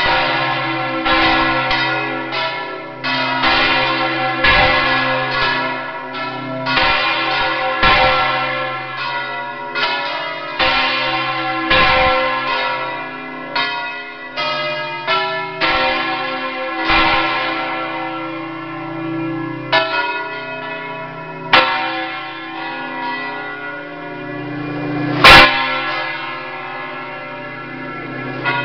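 Several church bells swung full circle on yoked mounts (Valencian 'volteig'), heard close up from inside the belfry: irregular clangs overlapping in a dense, sustained ringing. The strikes come thick and fast for most of the time, then thin out, with one much louder sharp hit near the end.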